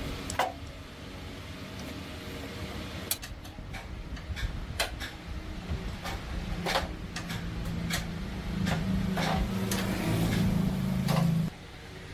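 Scattered metal clicks and taps from repair work, with a low motor hum that builds through the second half and cuts off suddenly near the end.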